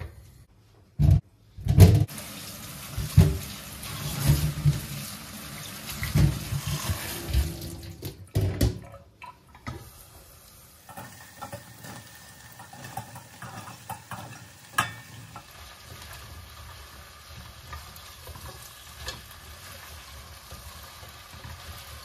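Onions frying in a stainless steel pot, stirred with a spatula. A run of loud, irregular scrapes and knocks fills the first half, then a steady sizzle follows as flat green beans go in and are stirred.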